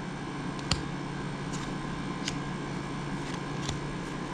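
Light clicks of cardboard trading cards being handled and set down on a stack, a handful of them, the sharpest just under a second in, over a steady low hum of room noise.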